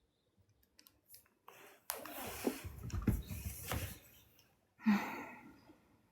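A person's breathing close to the microphone: a long noisy exhale with low rumble and a few knocks from about two seconds in, then a shorter sigh about five seconds in.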